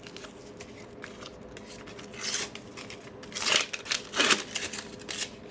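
A sticker packet being torn open and its wrapper crinkled: a few short rips and rustles about two to four and a half seconds in, with light handling clicks.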